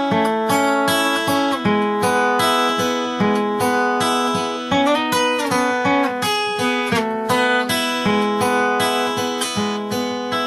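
Acoustic guitar in open D tuning, fingerpicked on the treble strings only in a steady rolling pattern of about four notes a second, moving through chord changes with the notes left ringing. No thumbed bass notes yet, just the treble picking pattern on its own.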